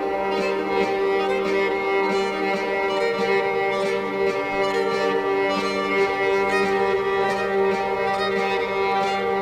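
Background music of long, held string chords.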